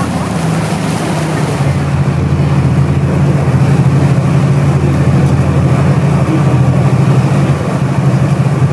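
Queen Emeraldas water bus under way: its engines give a steady low drone under the rush of wind and churning water. About two seconds in, the hiss of the wake and wind drops back, leaving the engine hum to the fore.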